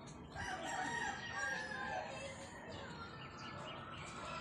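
A rooster crowing once, a single long call of about two and a half seconds.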